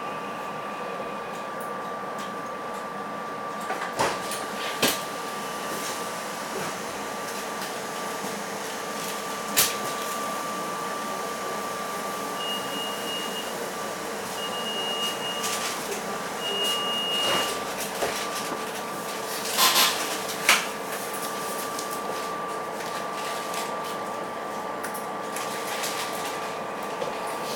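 Interior of a SEPTA Silverliner electric commuter railcar: a steady electrical and ventilation hum with two held tones, while a Silverliner train passes alongside. A few sharp knocks and clicks, and three short high beeps about a second apart near the middle.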